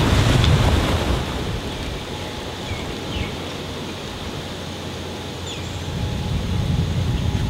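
Wind buffeting the microphone over breaking surf, dropping away after about a second to a quieter steady outdoor hiss with a few faint high chirps, then the wind rumble builds again near the end.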